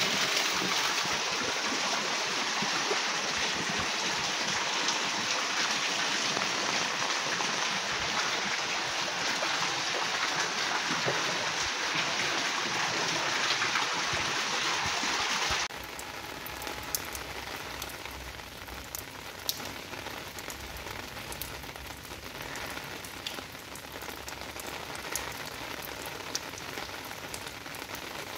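Heavy rain falling, a dense steady hiss. About halfway through it changes abruptly to quieter rain, with separate drops ticking and splashing on wet stone paving.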